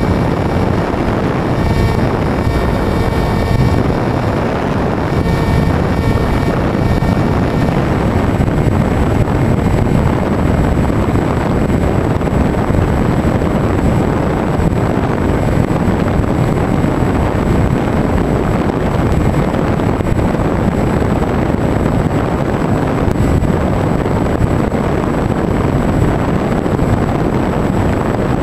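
Wind rushing over the onboard camera's microphone on a Bixler 2 foam RC plane in flight, mixed with the steady drone of its electric motor and propeller. A thin high whine joins about eight seconds in.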